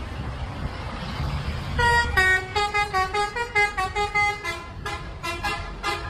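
Bus telolet horn, a multi-tone musical air horn, playing a quick tune of about a dozen short notes stepping up and down in pitch, starting about two seconds in, over a low engine rumble.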